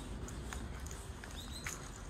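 A few short, high bird chirps over soft footsteps and a low, steady background rumble.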